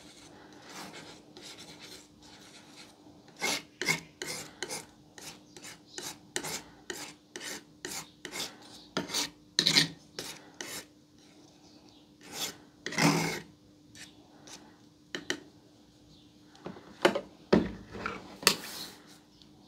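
Metal palette knife scraping, folding and smearing thick paint on a flat surface while mixing it, in a run of short, irregular strokes.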